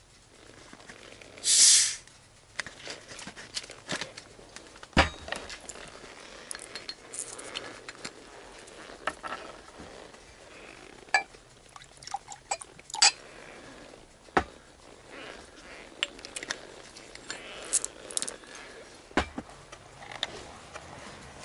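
A plastic soda bottle's cap twisted open, giving a short loud fizz of escaping gas, followed by a run of sharp clinks and knocks as glass bottles and a shot glass are handled and set down.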